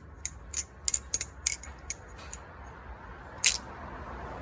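Kershaw Lucha balisong being flipped: sharp metallic clicks and clacks of its titanium handles swinging round and striking the blade's tang. A quick run of clicks in the first two seconds, then a single loud clack about three and a half seconds in.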